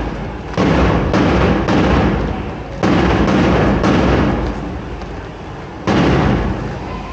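Loud booming drum beats in groups of three, about half a second apart, with short pauses between the groups and a single beat near the end.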